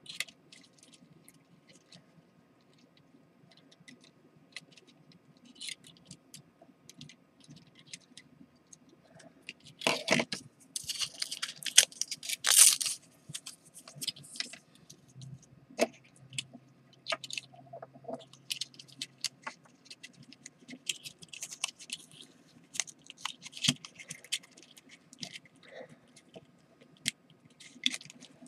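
Hands handling small plastic parts and wires on a wooden tabletop: scattered light clicks and rustles, with a louder stretch of crackling and scraping about ten seconds in that lasts roughly four seconds.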